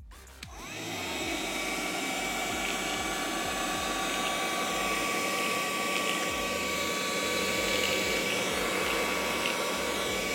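Homemade cordless vacuum cleaner, driven by a cordless screwdriver's motor, switched on with a click and spinning up within about a second into a steady whine and rush of air, with occasional light ticks.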